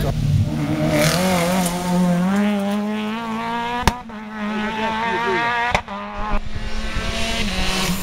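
Rally car engines at full throttle, the pitch of one climbing as it accelerates, with abrupt breaks about four and six seconds in as one car's sound gives way to another's.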